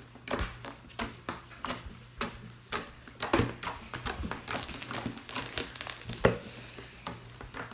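Glitter slime made from clear glue being poked and pressed with fingertips, then lifted and stretched, giving irregular wet clicks and squelches several times a second. The loudest pop comes near the end, as the slime is pulled up.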